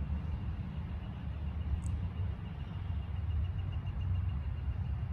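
Wind buffeting the microphone: an uneven low rumble, with a faint high pulsing tone from about a second in and one brief high tick about two seconds in. No gunshot.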